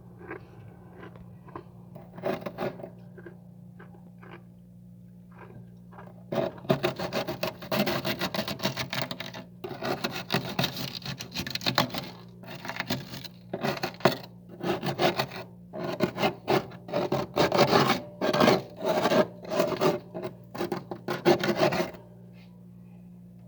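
Frost being scraped off the inside of a freezer: rasping strokes that come in quick runs from several seconds in, then as separate strokes about one a second, and stop shortly before the end. A steady low hum runs underneath.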